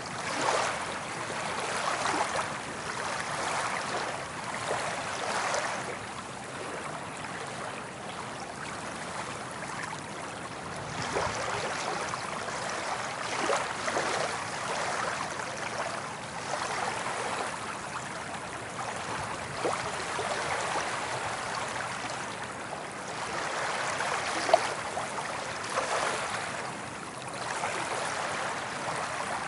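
Soft ocean waves washing onto a beach: a steady hiss of surf that swells and eases every few seconds, with small splashes. There is one brief sharp tick about three-quarters of the way through.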